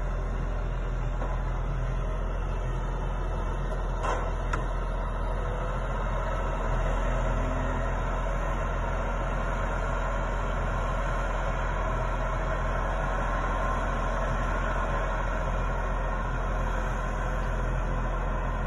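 Ponsse Buffalo forwarder's diesel engine running steadily as its hydraulic crane works a log, with two short sharp knocks about four seconds in.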